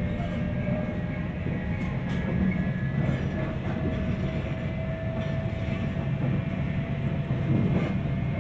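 JR 719 series AC electric multiple unit running: a steady low rumble of wheels on rail, with a thin whine whose pitch creeps slightly upward from about three seconds in. The whine is the jet-like sound that gives this unit its name of an odd-noise 'jet' car; the uploader is unsure whether it is simply normal for the 719 series.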